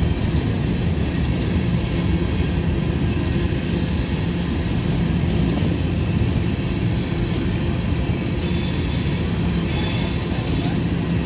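Freight train of covered hopper cars rolling past at close range: a steady rumble and rattle of steel wheels on the rails, with high-pitched wheel squeal rising twice near the end.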